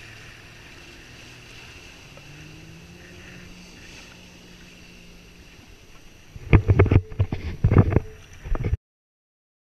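A jet ski's engine runs steadily at a distance, its pitch rising as it speeds away. About two thirds of the way in, a run of loud, sudden thumps and buffets takes over. The sound then cuts off abruptly to dead silence.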